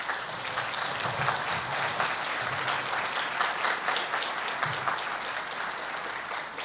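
Audience applauding: many hands clapping together steadily.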